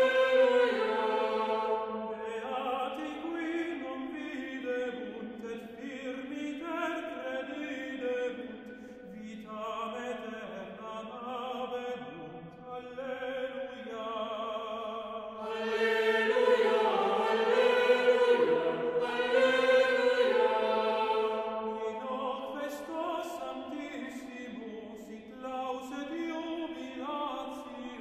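Gregorian chant sung by a choir in unison, slow held notes stepping from pitch to pitch, swelling louder in the middle.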